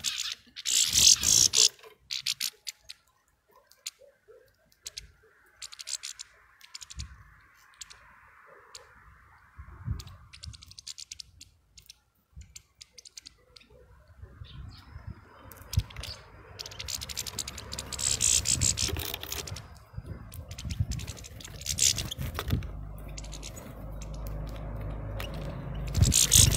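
European goldfinches at a sunflower-seed feeder: wings fluttering loudly close by about a second in, again around seventeen to nineteen seconds and at the very end, with many small clicks of seeds being picked and shuffled between. A low steady rumble comes in during the last few seconds.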